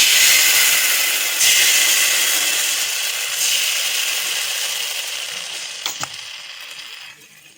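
Hot pan sizzling loudly as tomato sauce hits it, the hiss fading steadily and mostly dying away near the end, with one light click about six seconds in.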